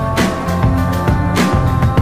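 Background music: sustained pitched instrument notes over a regular beat.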